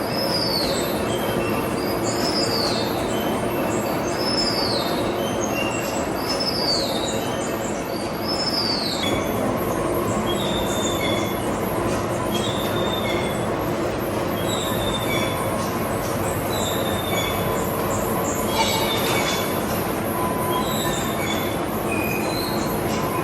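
Metal-cutting machine tool running with a high squeal of tool on metal. The squeal falls in pitch and repeats about every 1.3 s for the first nine seconds, then turns into shorter high tones at a similar pace, over steady machine noise.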